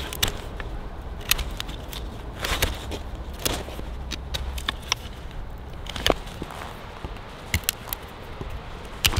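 Knife carving a wooden stake by hand. The blade cuts and shaves the wood in irregular scrapes and sharp clicks while the stake's end is bevelled and notched.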